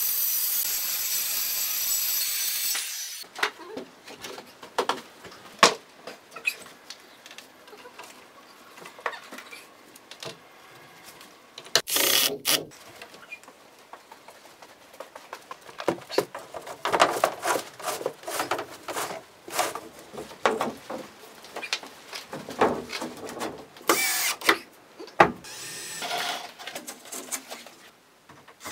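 Circular saw cutting an OSB sheet, a steady loud whine that stops about three seconds in. Then comes a run of knocks, taps and clatter as OSB boards are handled and fixed to timber ceiling joists, broken twice by a short burst of a power tool.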